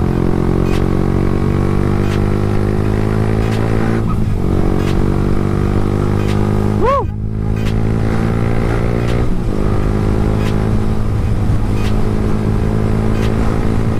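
Yamaha R15 V3's 155 cc single-cylinder engine on its stock exhaust, pulling steadily under throttle while riding. The pitch climbs slowly, with short breaks about 4, 7 and 9½ seconds in as it shifts gears.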